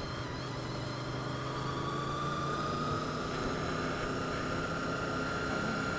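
Motorcycle engine running under way, heard with steady wind and road noise. A thin whine rises slowly as the bike picks up speed.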